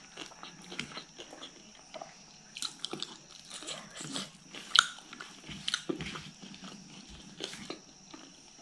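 Close-miked eating sounds: chewing and lip smacks, with wet squishing as fingers mix rice and fish curry. There are many short irregular clicks, the loudest about halfway through.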